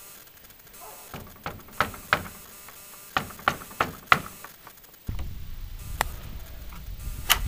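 Knuckles knocking on a weathered wooden plank shed door, a few sharp raps in two groups. About five seconds in, a steady low rumble sets in suddenly, and there is one more sharp click near the end.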